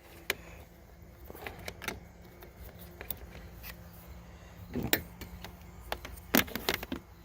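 Scattered light clicks and knocks of a test light and its ground clip being handled against the ATV's metal frame, over a faint steady hum; the loudest knocks come about five and six and a half seconds in.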